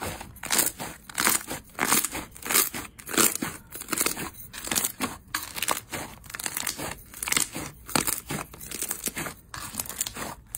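Thick pale yellow crunchy slime squeezed and stretched by hand, crackling and tearing in a run of sharp crunchy bursts roughly one to two a second.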